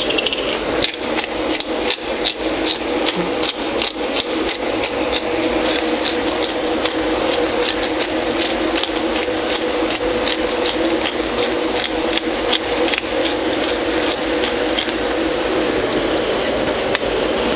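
Pepper grinder being twisted over a frying pan: a long, fast run of gritty clicks, with the pan of mince and tomatoes frying underneath.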